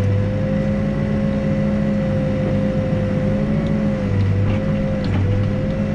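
Backhoe's diesel engine running steadily while digging, with a steady whine that wavers slightly in pitch over the engine hum.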